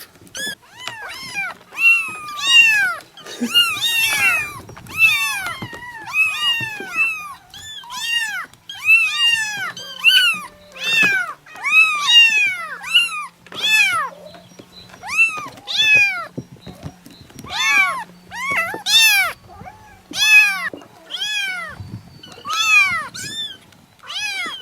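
Several kittens meowing over and over in high, thin calls that rise and fall in pitch, about one or two a second, sometimes overlapping.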